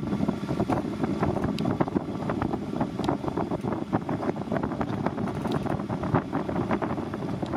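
Wind rushing over the microphone, with many quick, irregular splashes and crackles of small waves lapping.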